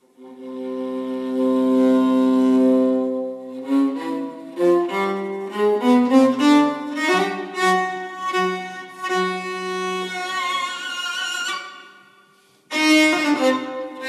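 Solo violin played with the bow: one long held low note, then a phrase of shorter notes moving up and down. It fades out about twelve seconds in, and a new note starts just before the end.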